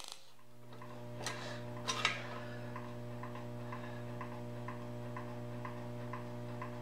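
Lincoln SP-250 MIG welder humming steadily at idle, just after the arc has stopped, with faint regular ticking about three times a second. Two short knocks sound in the first two seconds.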